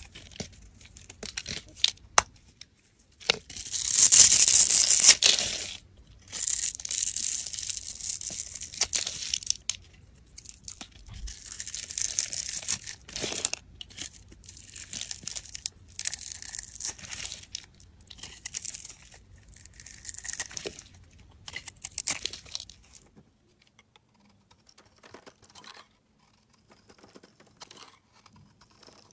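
A utility-knife blade shaving flakes and thin curls off bars of soap in a run of long scraping strokes, each one to three seconds long with short pauses between them. After about 23 seconds only soft, short scrapes follow.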